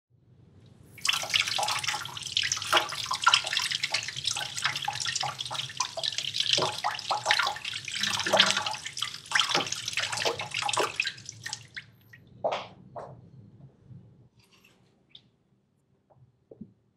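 Kitchen tap running into a stainless steel sink while something is rinsed by hand under the stream, with splashing. The water stops about twelve seconds in, followed by a couple of drips and a few faint clicks near the end.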